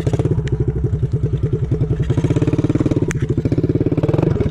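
Motorcycle engine running at low speed while riding over grass, with a steady, even beat of firing pulses.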